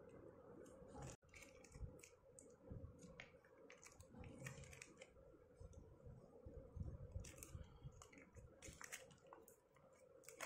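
Faint crinkling of a clear plastic zip pouch and scattered small clicks of plastic stationery pieces (erasers, stackable bead pencils) being handled and unpacked by hand, over a faint steady hum.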